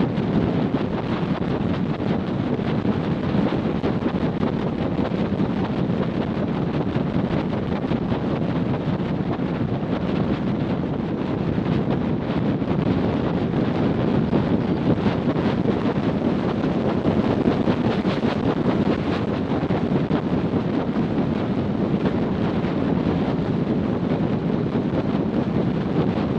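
Steady wind noise: air rushing over the microphone of a camera strapped to a macaw in free flight.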